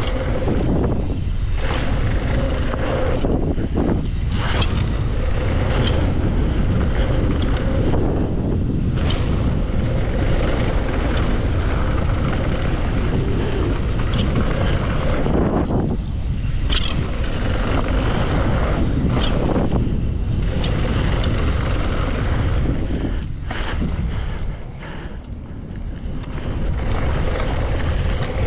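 Wind rushing over the camera microphone as a mountain bike rides fast down a dirt trail, its tyres rolling and the bike rattling. The rush drops out briefly several times and eases for a second or two a few seconds before the end.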